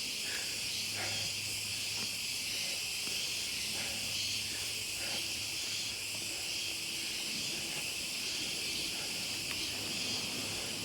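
Steady high-pitched drone of a forest insect chorus, unchanging throughout.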